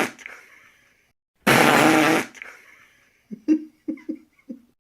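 A loud, raspy fart lasting under a second, about a second and a half in. It is followed by a string of short, quieter puffs near the end.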